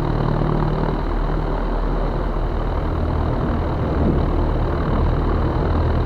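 Zenith CH 650's 118-hp UL Power UL350i four-cylinder engine running steadily at low power, a constant drone that grows slightly louder about four seconds in.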